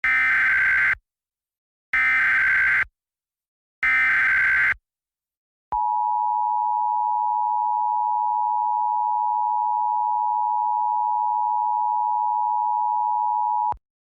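Emergency Alert System opening: three short bursts of warbling data tones (the SAME header), about two seconds apart, then the steady two-tone EAS attention signal for about eight seconds, cutting off sharply. It marks the start of an emergency alert broadcast, here a fire warning.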